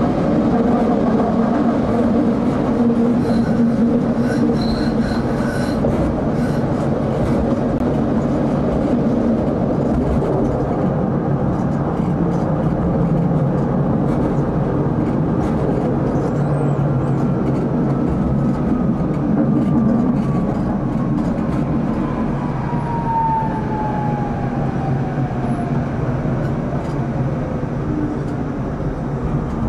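Tram running on its rails, heard from inside the driver's cab: a steady rumble of wheels on track with the traction motors' hum, and a few clicks a few seconds in. Over the last dozen seconds a whine falls steadily in pitch and the sound eases as the tram slows toward a stop.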